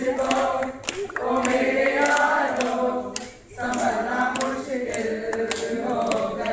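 A group of students singing together as a choir without instruments, on long held notes, with a short break for breath about halfway.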